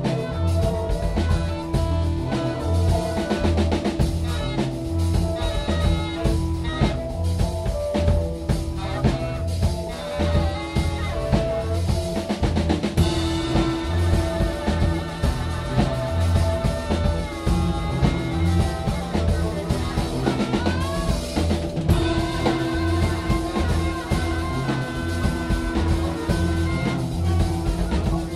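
Live band of drum kit, bass, Rhodes electric piano and saxophone playing psychedelic jazz-rock, with a steady drum beat under held, wavering melodic lines.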